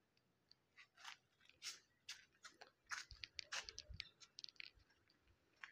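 Faint footsteps on a tiled paved walkway, heard as irregular soft crunches and small clicks over near silence.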